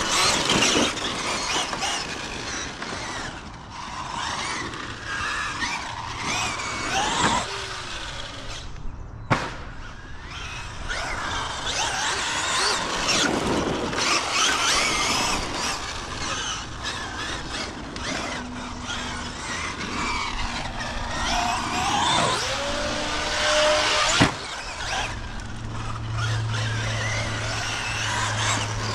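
Traxxas Maxx Slash RC short course truck on 6S, its brushless motor whining up and down in pitch as it speeds up and slows, with tyres scrabbling on loose dirt. Two sharp knocks, about nine seconds in and again near 24 seconds.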